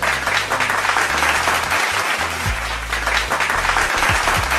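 Crowd applause, dropped in as a sound effect for a correct answer, over background music with a low bass line.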